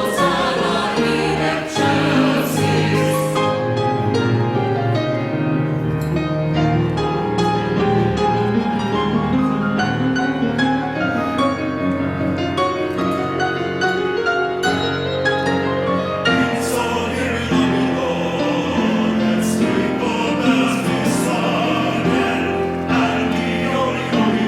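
Music: a church choir singing with instrumental accompaniment.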